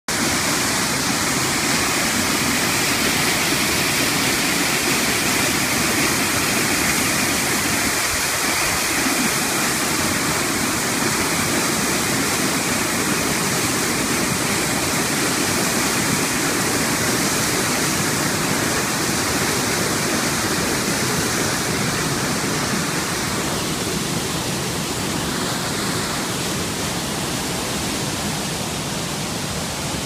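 Waterfall: a river pouring over rocks into a pool, a steady dense rush of water, heard close, that eases slightly in the last few seconds.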